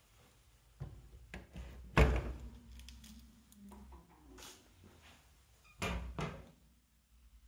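A run of knocks and clunks with one loud bang about two seconds in, which rings on briefly, followed by a low drawn-out creak-like tone. Two more thuds come close together near the end.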